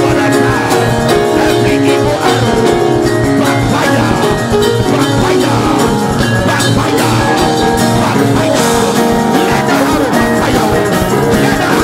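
Music with guitar and sustained notes, playing at a steady level.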